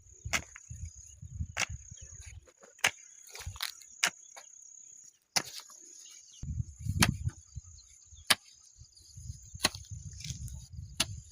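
Scattered sharp knocks and cracks, irregularly spaced, over a steady high insect trill, with patches of low rumbling handling noise.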